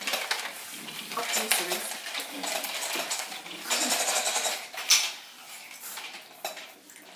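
Small toy dog being dragged across a tile floor by a miniature pinscher, scraping and clattering irregularly, with a sharp knock about five seconds in.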